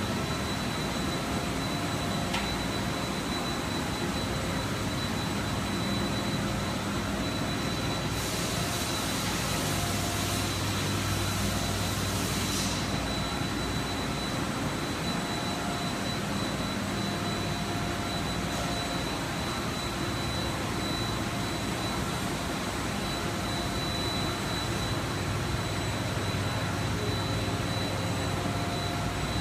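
Steady hum of machine-shop machinery running, with a constant thin high whine over a low drone. About eight seconds in, a hiss joins for some four seconds.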